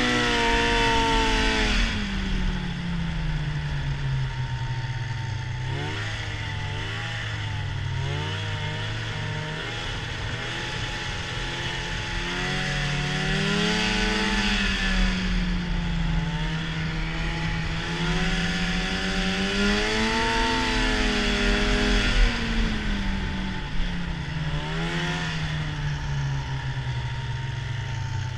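Arctic Cat snowmobile engine heard from the rider's seat while riding, its pitch rising and falling with the throttle. It is high at the start and drops over the first couple of seconds, then climbs and eases off again about halfway through and once more a little later, with wind rushing over the microphone throughout.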